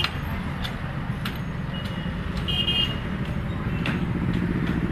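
Street traffic noise: a steady low rumble of passing vehicles, with a short high-pitched horn toot about two and a half seconds in and a few sharp clinks of steel utensils.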